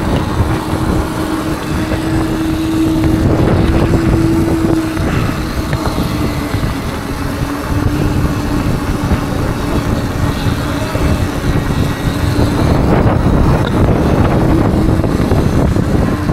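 Electric unicycle ridden at cruising speed: wind buffeting and rumbling on the microphone, under a steady motor whine that drifts slightly in pitch.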